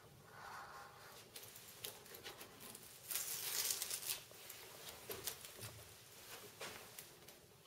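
Sharp knife cutting the excess pressure-sensitive laminate off the edges of a mounted photo: faint scraping and small clicks, with a louder stretch of cutting for about a second around three seconds in.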